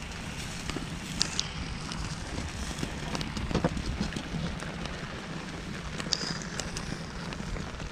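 Burning rice straw crackling with scattered sharp pops, over a steady rumble of wind on the microphone.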